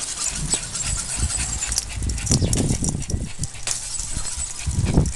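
Toy poodle's sounds close by, with scattered sharp clicks and an uneven low rumble of movement; the rumble is loudest about two and a half seconds in and again near the end.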